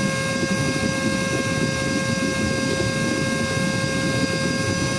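Cordless vacuum's battery-powered motor running steadily, a continuous whine over a rushing hum, four minutes into a full charge, the point where the owner already hears its power starting to drop as the battery runs down.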